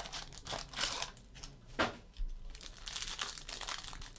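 Foil wrapper of a trading-card pack crinkling and tearing as it is ripped open and handled, in irregular crackling rustles with a few sharper snaps.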